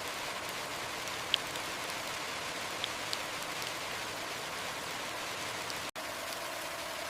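Heavy rain falling steadily, with a few sharp ticks of drops on a hard surface, the loudest about a second in.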